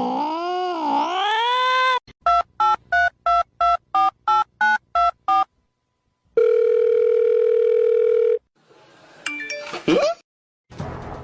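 A cat yowling with a wavering pitch, then a quick run of about a dozen telephone-style keypad beeps and a steady tone lasting about two seconds, then a short rising squeal; music starts near the end.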